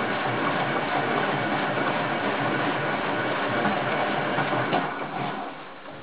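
Hoover Time Manager H130E washing machine running, its motor turning the drum with water in it, a steady mechanical noise. The noise dies away about five seconds in as the drum comes to a stop.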